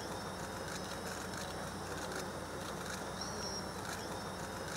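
Steady outdoor background noise with a low machine hum under it. A short high chirp comes about three and a half seconds in.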